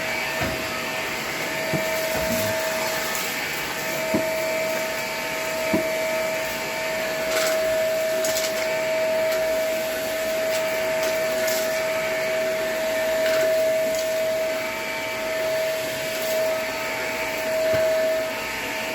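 Vacuum cleaner running steadily, its motor giving a constant high whine over a rushing air noise, with a few brief clicks and knocks along the way.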